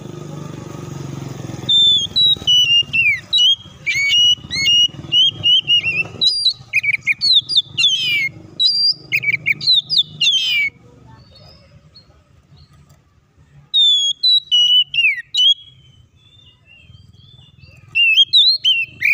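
Oriental magpie-robin singing in loud bursts of rapid, varied whistles and sliding notes. The song breaks off for a few seconds past the middle, gives a short burst, then resumes near the end. A low rumble lies under the first few seconds.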